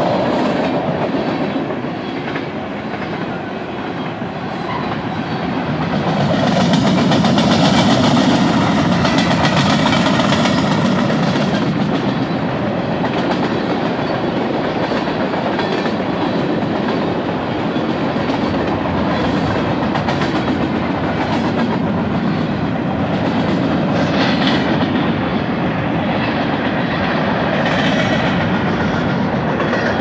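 Tank cars and covered hopper cars of a long freight train rolling past on steel rails: a steady rumble of wheels on track, swelling louder a few seconds in, with occasional sharp clicks.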